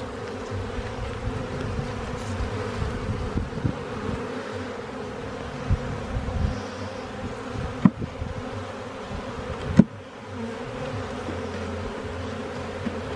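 Honeybees buzzing steadily around an open hive full of bees. Two sharp knocks about two seconds apart cut through the buzz past the middle.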